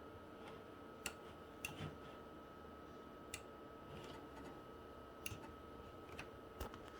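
Macintosh IIfx running with a steady hum, with about eight faint, irregular clicks over it, typical of the computer being operated.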